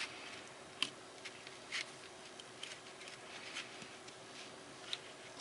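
Several faint, sharp plastic clicks at irregular intervals as a 1967 Cadillac Deville's Delco Remy column neutral safety switch is worked by hand through its gear positions.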